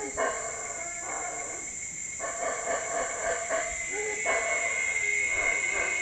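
Yucatán black howler monkeys roaring in repeated bouts, each about one to two seconds long with short breaks between, over a steady high-pitched whine.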